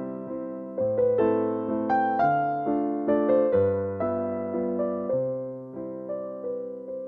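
Background music: a slow, gentle piano piece, notes struck and left to ring out.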